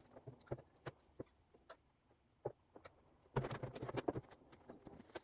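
Plastic pipe fittings and a plastic bottom-drain housing being handled: scattered light clicks and taps, with a short cluster of louder knocks about three and a half seconds in.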